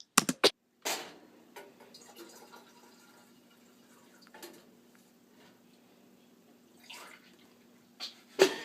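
Water poured from a small cup into a tea kettle, dripping and trickling softly. A few sharp knocks at the start and a loud one near the end as the cup and kettle are handled.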